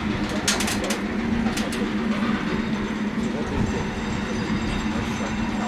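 Heritage diesel-hydraulic locomotive engine idling, a steady low hum, with a few sharp metallic clicks in the first two seconds.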